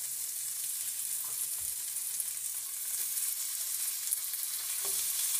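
Bacon sizzling in a hot non-stick skillet as more pieces are laid in: a steady frying hiss that grows slightly louder near the end.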